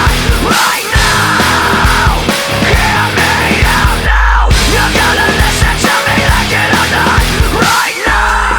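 Nu-metal rock music with heavy distorted guitars and driving drums. The band drops out briefly about four seconds in, leaving only a deep bass hit, then comes back in.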